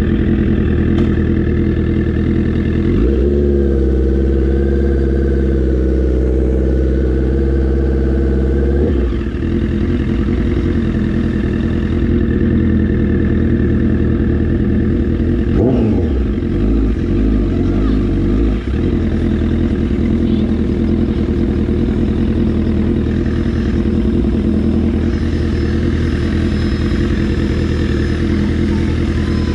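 Motorcycle engine running while riding along a street, heard from the rider's seat. It holds a steady pitch for several seconds early on, then its pitch rises and falls briefly about sixteen seconds in.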